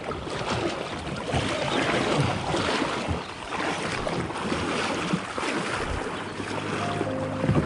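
Water splashing and rushing around a kayak as it is paddled along a river, with wind buffeting the microphone. Music comes in near the end.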